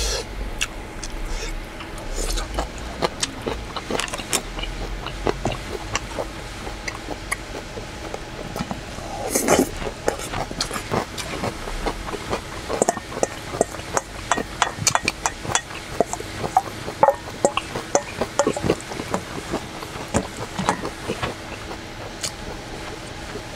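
Eating sounds: a wooden spoon and chopsticks clinking and scraping against a stainless steel bowl, with chewing and slurping of noodles. The clinks come often and irregularly, with one louder, longer sound about nine and a half seconds in.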